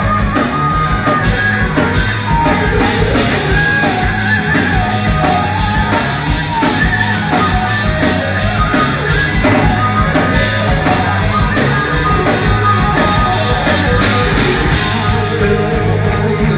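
Hard rock band playing live at full volume: distorted electric guitars, bass and drum kit driving a steady beat, with a singer's voice over them, heard from within the audience.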